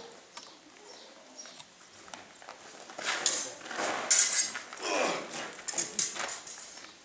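Steel stage swords clashing in quick metallic clinks, sparse at first and then in thick, louder flurries from about three seconds in, mixed with feet scuffing on gravel.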